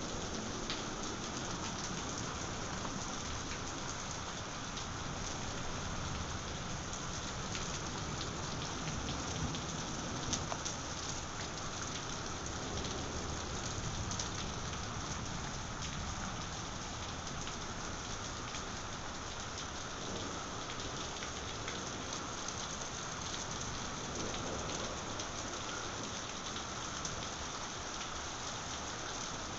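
Steady heavy thunderstorm rain pouring down, with a few sharper drop hits and low thunder rumbling in the background.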